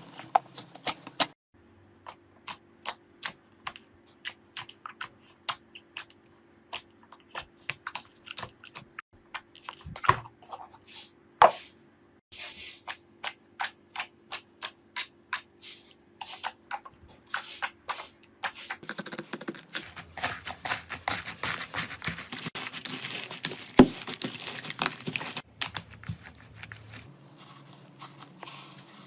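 Slime being pressed and poked by hand, giving a run of sharp sticky clicks and pops that thicken into a dense crackling squish in the second half.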